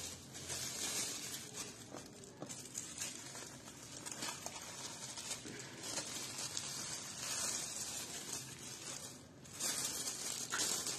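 Clear plastic sheeting crinkling and rustling as it is handled, in irregular surges.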